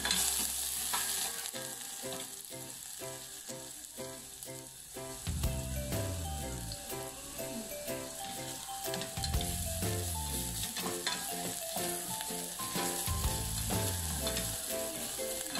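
Chopped onion sizzling in hot oil in a stainless steel saucepan, with a wooden spatula scraping and stirring against the pan.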